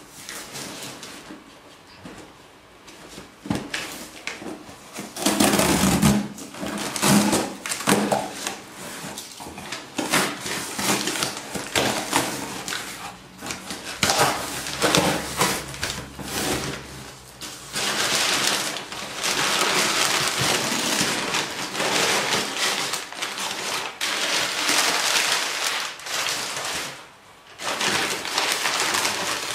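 Cardboard shipping box being torn open by hand, then crumpled kraft packing paper crackling and rustling as it is pulled out, in irregular bursts.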